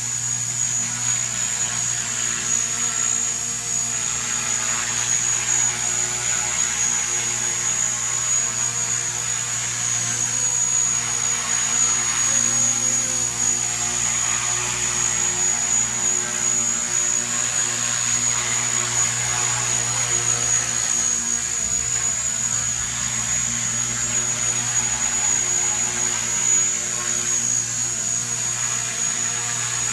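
Small radio-controlled helicopter hovering and drifting low, its rotor and motor making a steady hum with a high whine on top.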